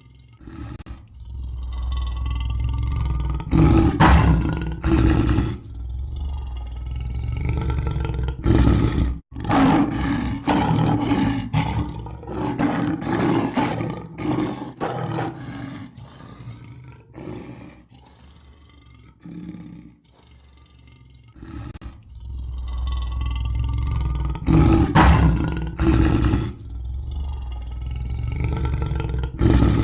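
Lion roaring and growling in a series of long, deep calls with short breaks between them, quieter for a few seconds past the middle.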